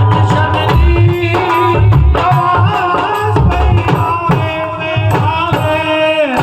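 Punjabi devotional bhajan music: a melody line over a steady hand-drum rhythm, the melody sliding down in pitch near the end.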